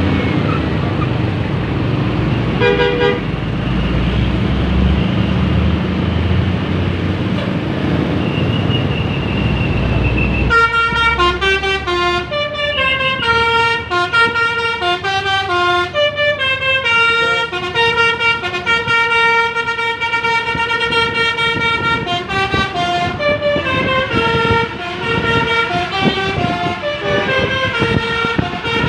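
Bus engine and traffic rumble with a short horn blip about three seconds in. From about ten seconds in, a bus's multi-tone telolet horn plays a melody of clear notes stepping up and down.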